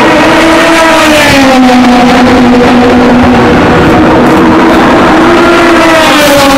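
Loud GT race car engines running, their pitch sliding down over the first two seconds and climbing again near the end.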